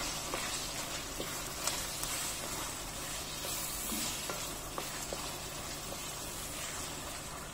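Chopped onions, tomatoes, garlic, ginger and green chillies sizzling steadily in hot oil in a metal pot, stirred with a wooden spoon that scrapes and knocks against the pan now and then.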